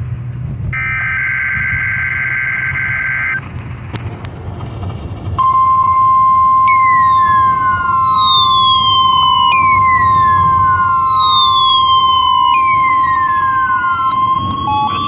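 A NOAA Weather Radio emergency alert plays through radio speakers. For the first three seconds there is a data burst of two steady high pitches, the SAME header. A couple of seconds later the steady 1050 Hz warning alarm tone comes on. It is joined by falling siren-like sweeps that repeat about every three seconds, and a tone rises near the end.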